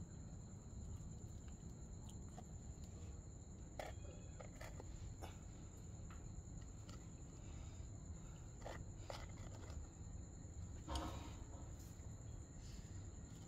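A cricket's steady high-pitched trill runs on under faint scattered taps and clicks from kittens moving about on a tiled floor, with one brief louder sound about eleven seconds in.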